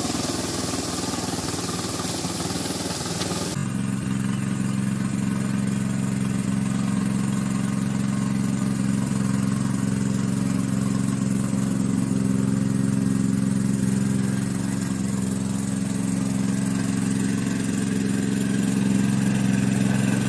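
Rushing of a swollen river, then, after a sudden change about three and a half seconds in, the engine of a walk-behind power tiller running steadily as the machine is driven along.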